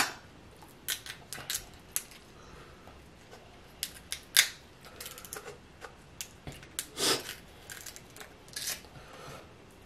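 Snow crab leg shells cracking and clicking as they are worked at to free meat that is stuck inside: a series of short, irregular snaps, the sharpest right at the start and about four and seven seconds in.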